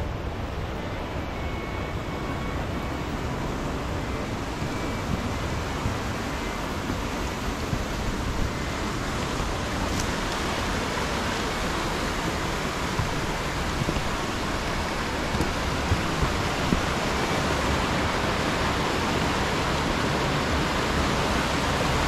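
Wind rushing over the microphone of a moving motorcycle, a steady noise with a low rumble underneath, growing a little louder in the second half, with a few faint sharp ticks about three-quarters through.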